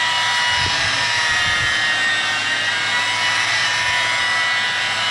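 Electric rotary polisher running steadily with an 8-inch foam compounding buffing pad pressed against painted bodywork. It gives a steady motor whine over a continuous rushing hiss.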